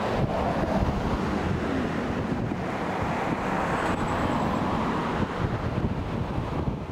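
Wind blowing across the microphone: a steady rush with irregular low buffeting, swelling slightly around the middle.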